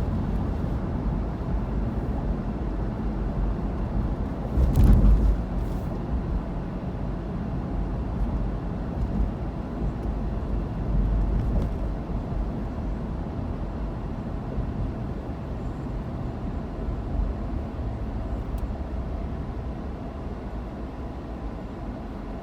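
Road vehicle noise in traffic: a steady low rumble of engine and road, with a louder surge about five seconds in.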